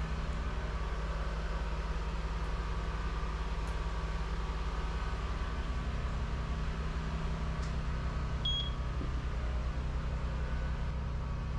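Steady low machine hum, with one short high-pitched beep about eight and a half seconds in.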